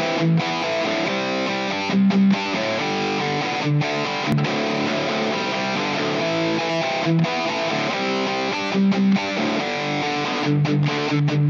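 Background music: a guitar-led instrumental track.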